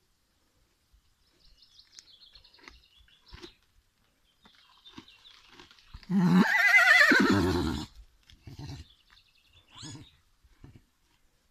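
Garrano horse whinnying once, about six seconds in: a loud, quavering call of about two seconds that rises and then falls in pitch. Faint bird chirps and rustling come before and after it.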